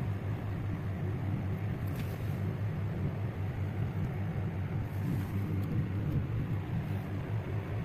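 A steady low hum or rumble of background room noise, unchanged throughout, with a faint click about two seconds in.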